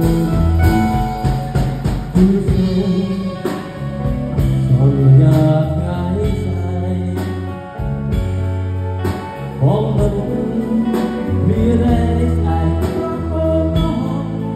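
A live band playing: a Stratocaster-style electric guitar over a steady low bass line and drum hits, with a few bending, gliding notes about ten seconds in.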